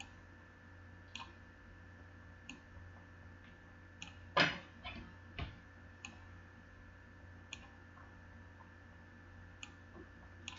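Faint, scattered computer mouse clicks every second or two, with one louder knock about four seconds in, over a low steady hum.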